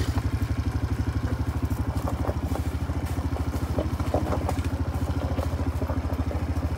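Quad bike (ATV) engine running steadily with an even fast pulse, with a few light rattles.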